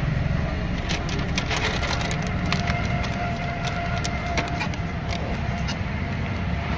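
Crackling and clicking of a phone's microphone being handled and brushed, a dense run of it from about a second in, over a steady low rumble inside a vehicle.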